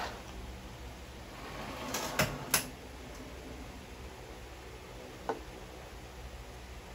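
Three short sharp knocks in quick succession about two seconds in, then a single lighter knock later, over quiet room tone.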